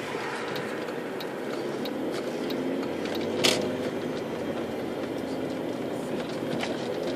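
Interior noise of an Audi A4 Avant TDI turbo-diesel driving slowly down a street: a steady engine and tyre rumble, with a few light ticks and one louder knock about halfway through.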